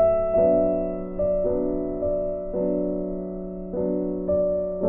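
Slow, gentle background piano music, with notes and chords struck about once a second and left to ring out.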